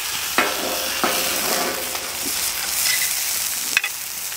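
Food sizzling on a hot griddle over a wood fire, with a metal spatula scraping across the griddle a few times in sharp strokes as a striped bass fillet is lifted off.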